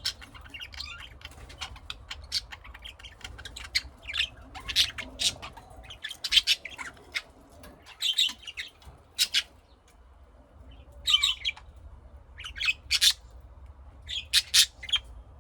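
Pet lovebirds chirping and squawking: a string of short, shrill calls in scattered clusters, with a brief lull about two-thirds of the way through.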